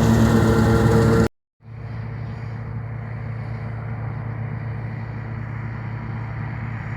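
Massey Ferguson 385 tractor driving a wheat straw chopper blower, a loud steady running sound with several steady tones, which cuts off abruptly about a second in. After a brief gap, a quieter steady engine hum continues.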